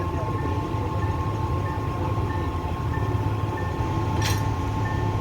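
Sri Lanka Railways S8 class diesel multiple unit running steadily, a low rumble with a steady whine. A short high beep repeats about every 0.7 seconds, and there is a sharp clink about four seconds in.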